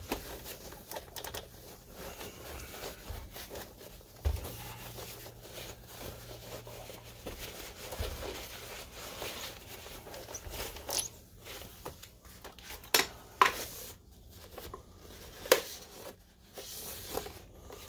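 Paper towel wiping and rubbing over a projector's plastic case, a continuous crinkly rustle, with a few sharp ticks and knocks in the second half as the unit is handled.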